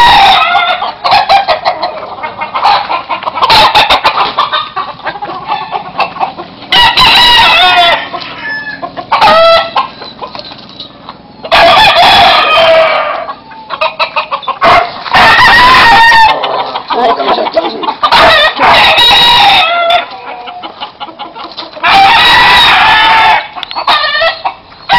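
Several gamecocks crowing in turn, one loud drawn-out crow about every three seconds.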